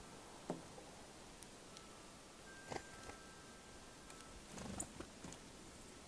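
Faint outdoor ambience with a few soft knocks and, from about two seconds in, a pair of steady ringing tones held for about two seconds, like a chime.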